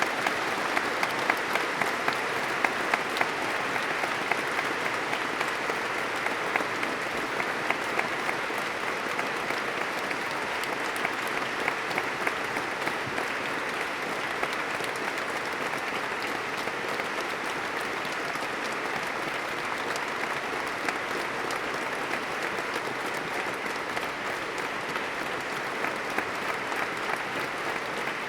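A large audience applauding steadily, with many hands clapping at once and some shouting mixed in.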